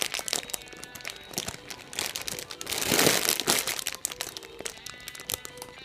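A bread-shaped foam squishy toy being squeezed in the hands, giving a crinkling, rustling noise that swells and fades about three seconds in, over light background music.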